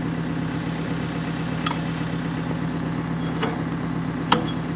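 Caterpillar 430D backhoe's diesel engine idling steadily, with two sharp metal clinks, one a couple of seconds in and a louder one near the end.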